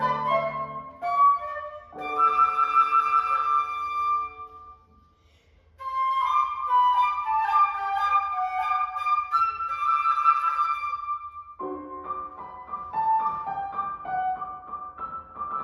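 Flute playing a melody with quick runs and trills, with piano accompaniment; the music breaks off briefly about five seconds in, then resumes.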